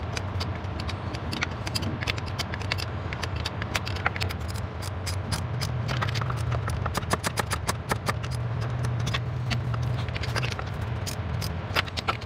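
Hand ratchet wrench clicking in quick runs as nuts are tightened onto steel studs of a transmission-support bracket, with a steady low hum underneath.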